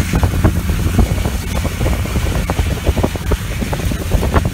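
John Deere 9400 four-wheel-drive tractor's Cummins diesel engine running steadily under load as it pulls a wide harrow, a low drone. Many irregular crackles and knocks sound over it.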